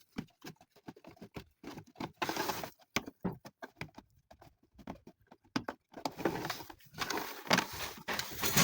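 Irregular clicks, taps and rustling of parts being handled and fitted by hand.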